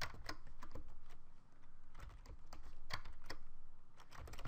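Typing on a computer keyboard: irregular runs of quick key clicks, with a brief pause about a second and a half in.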